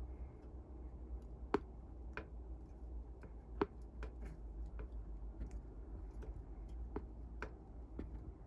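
Irregular small clicks and ticks from mating Odontolabis dalmanni stag beetles shifting their legs, over a low steady hum. Two sharper clicks stand out about one and a half and three and a half seconds in.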